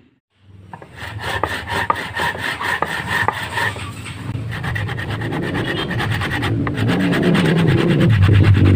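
Hand saw cutting through a tree branch in quick back-and-forth rasping strokes, starting about half a second in after a moment of silence. A low rumble swells near the end.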